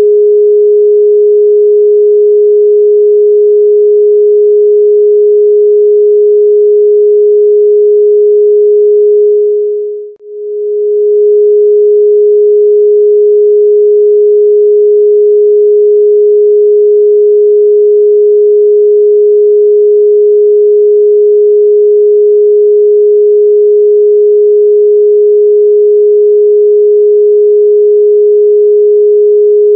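A steady, loud electronic sine tone of middle pitch, one pure note with no overtones, dipping away briefly and swelling back about ten seconds in. It is played as a meditation tone for 'third eye' activation.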